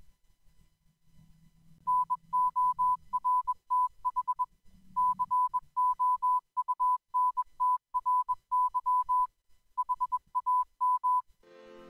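Morse code: a single tone of about 1 kHz keyed on and off in short and long elements. It starts about two seconds in, with two short breaks, and stops shortly before the end.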